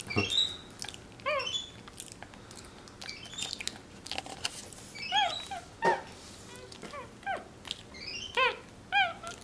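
Capuchin monkey chirping: short high-pitched calls, each rising then falling in pitch, coming in runs of two to four about once a second, with short sharp clicks between them.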